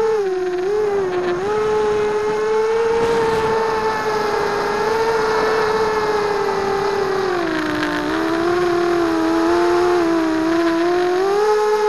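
Coptergeist CGX250 mini quadcopter's brushless motors and propellers whining, picked up by its onboard camera: a steady pitched tone with overtones. The pitch dips briefly near the start and again for several seconds in the second half as the motors slow, then rises back near the end.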